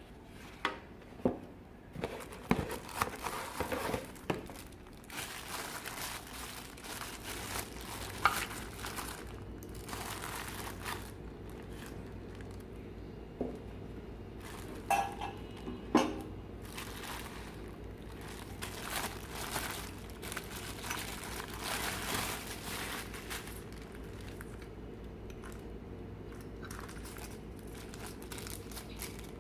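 Hands handling a miniature toy stove and its packaging: plastic wrapping crinkling and rustling, with a few sharp clicks and knocks of small hard pieces in the first few seconds and again about halfway through.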